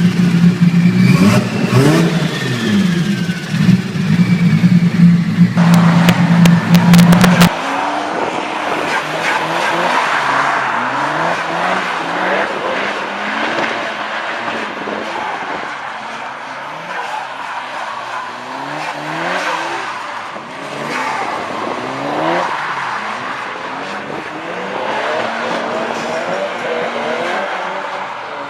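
Turbocharged car engines. The first is loud and running steadily; after a cut about seven seconds in, engines rev again and again, each rev a rising sweep in pitch, about once a second.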